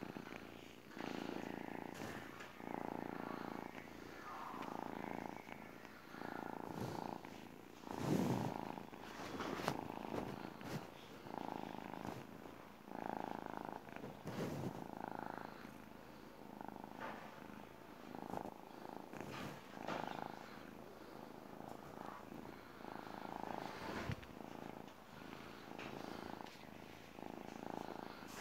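Tabby kitten purring close up, the purr swelling and fading with each breath about every second and a half. A few brief knocks and rustles break in, the loudest about eight seconds in.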